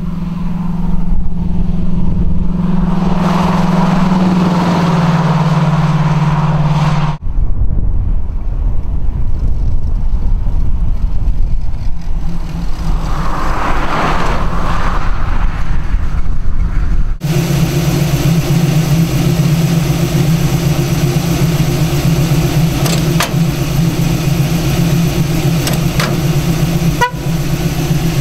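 1967 Camaro's rebuilt 350 small-block V8 with headers and dual exhaust: a steady exhaust drone that drops in pitch about four seconds in, then the car driving past with a noise that swells and fades around the middle, then the engine idling steadily. The sound changes abruptly twice where the footage is cut.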